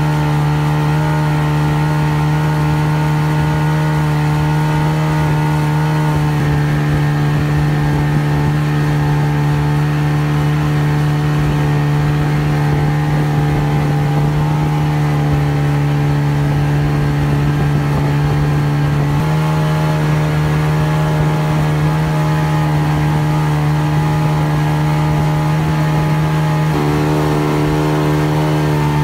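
Boat engine running steadily at speed under way, with a few small shifts in pitch.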